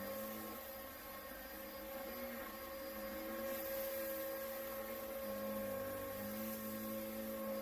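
Upright vacuum cleaner running steadily, its lower motor tones shifting up and down in pitch now and then.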